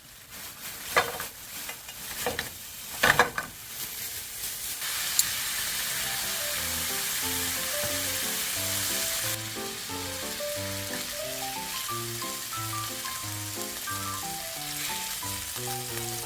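Food frying in a hot pan: a few sharp knocks in the first seconds, then a steady sizzle that sets in about five seconds in.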